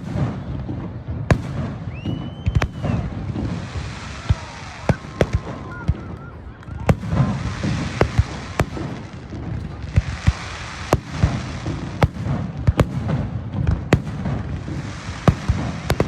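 Aerial fireworks going off: many sharp bangs, at times several a second, with spells of crackling between them over a low rumble.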